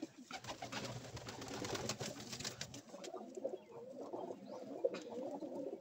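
Domestic pigeons cooing, low wavering calls mostly in the second half, with scattered clicks and rustling over the first few seconds.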